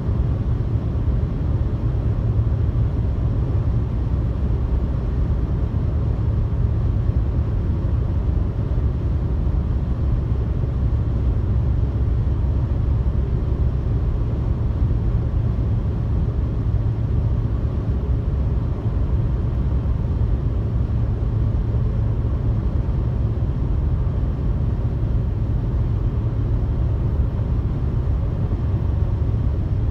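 Car cruising at highway speed, heard from inside the cabin: a steady low rumble of tyre, road and engine noise.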